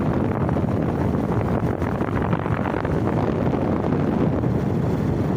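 Wind rushing steadily over the microphone of a moving motorcycle, mixed with the bike's road noise.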